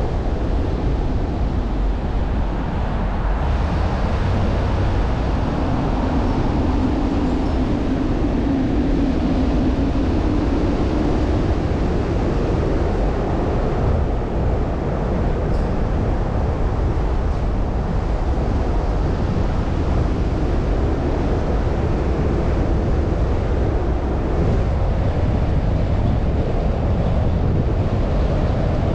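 Steady road noise of a car driving slowly: tyres on the pavement and a low engine rumble, with a low hum coming up for several seconds a quarter of the way in.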